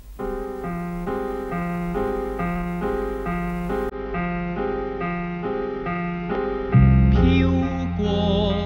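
Theme song opening on piano playing a repeating broken-chord figure. About seven seconds in, a bass and fuller accompaniment come in, and a singer starts near the end.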